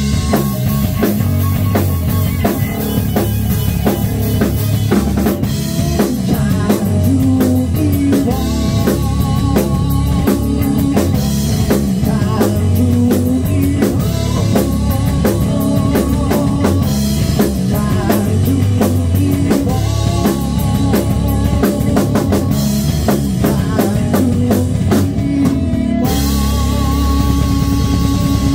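Live rock band playing loud: electric guitar, bass guitar and a full drum kit. About two seconds before the end the drumming stops and a final chord is held and rings out, with one note sliding down: the song is ending.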